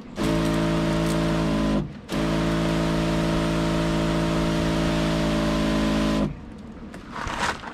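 Electric pump of a Kawasaki 2-in-1 battery knapsack sprayer running, with the hiss of a fine spray from the nozzle. It cuts out briefly about two seconds in, starts again and runs steadily until it stops about six seconds in.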